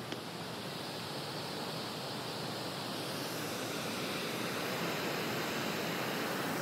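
Water rushing over a low river weir: a steady rush that grows somewhat louder through the second half.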